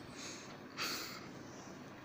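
A person's faint snorting breaths through the nose, two short hissy bursts about half a second apart, as from someone snoring in their sleep.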